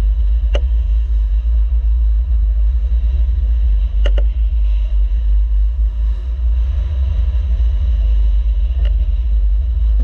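Heavy, steady low rumble of wind and rushing water on a camera mounted at a cutter's bow as it crashes through big swells. A few sharp knocks cut through it: one about half a second in, a double knock around four seconds, and another near the end.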